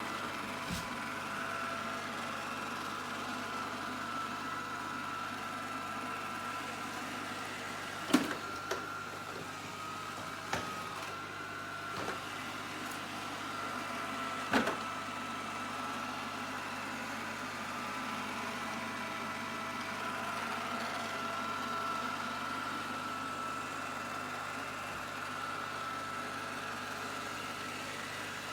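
Lubluelu L20 robot vacuum running with a steady motor whine and hum, with a few short knocks along the way, the loudest about eight seconds in.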